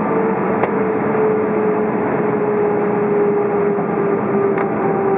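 Cabin noise of an Airbus A320 taxiing: a steady drone of the engines and airflow, with a whine that sinks slightly in pitch.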